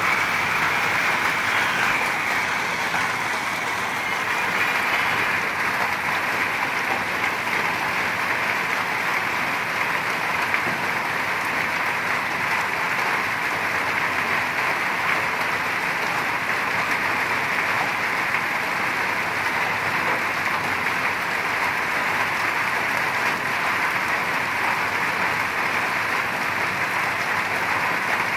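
Heavy rain pouring steadily, with water running off in streams.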